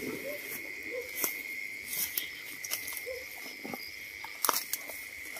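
A steady high trill of night insects such as crickets, with scattered rustles and crunches of footsteps through tall grass and a few short low calls from frogs.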